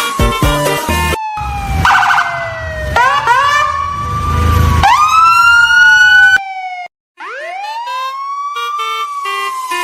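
Electronic siren wails sliding up and down in pitch, mixed with background music at first. They cut off suddenly about six and a half seconds in, then one more wail rises and falls near the end.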